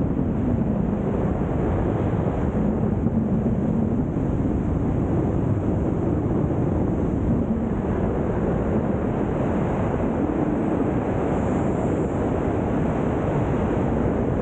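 Wind rushing hard over the microphone of a helmet-mounted camera during wingsuit freefall: a steady, dense rush of airflow, with a faint low hum underneath that wavers in pitch.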